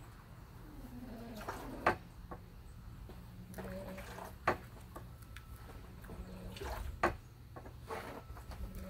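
A person performing a taekwondo poomsae makes three short, sharp sounds with the movements, about two and a half seconds apart, over a faint steady hum.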